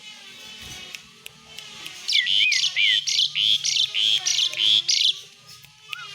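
Asian pied starling (jalak suren) giving its 'besetan' song: a loud run of rapid, harsh chattering bursts mixed with short whistled glides. It starts about two seconds in and lasts about three seconds, over fainter calls of other birds.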